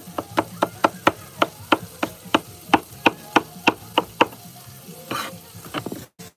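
Chef's knife chopping hot peppers on a plastic cutting board: a quick, even run of about four knife strikes a second, stopping about four seconds in.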